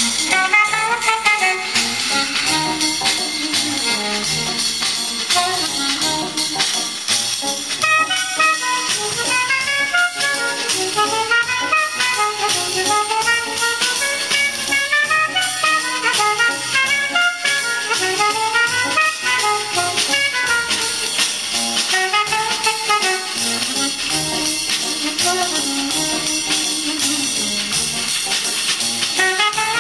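Recorded music played back from a cassette on a Sansui SC-1110 stereo cassette deck through loudspeakers: a song with brass and percussion.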